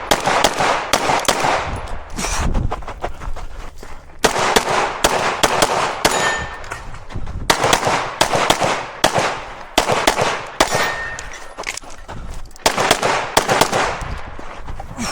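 Rapid strings of 9mm pistol shots from a Glock 17, fired in quick bursts with short breaks between them, with the occasional clang and brief ringing of steel targets being hit.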